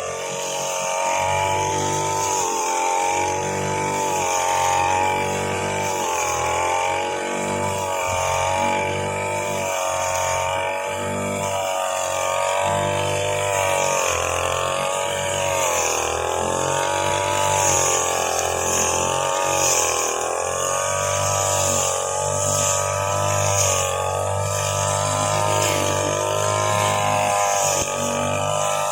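Grass-cutting machine running continuously, its pitch rising and falling every second or two as the load changes while it cuts.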